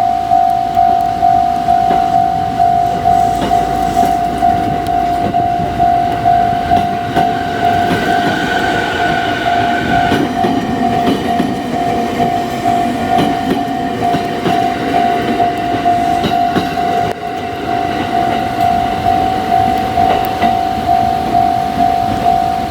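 Japanese railway level-crossing warning alarm ringing steadily, one electronic clang repeated about three times every two seconds. Under it runs the noise of a Yokosuka Line train, growing louder through the middle.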